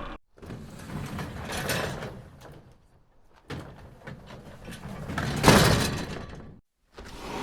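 Two separate door recordings. Each is a few seconds of a door moving with a rough rumbling noise. The second is louder and peaks in a sharp bang about five and a half seconds in.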